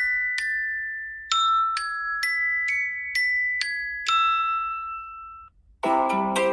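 iPhone ringtone: a melody of bright, bell-like struck notes, about two a second, each ringing out and decaying, ending on a held note about five and a half seconds in. After a brief gap, another ringtone starts near the end with a fuller tune of lower notes.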